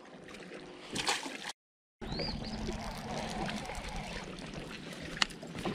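Water lapping and trickling against a boat hull, broken by half a second of dead silence about a second and a half in. A single sharp click comes near the end.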